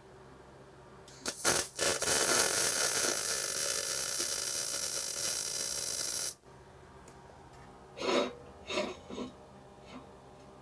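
MIG welding arc on hard wire laying a short tack weld on a steel pipe joint: a couple of brief sputters as it strikes about a second in, then a steady hiss for about four seconds that cuts off suddenly when the tack is done. Three short noises follow a couple of seconds later.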